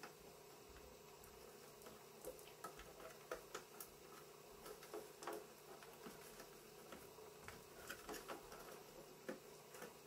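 Faint scattered clicks and light knocks of power and ribbon cable connectors being pushed into the backs of DVD drives in a metal drive carrier, over a low steady hum.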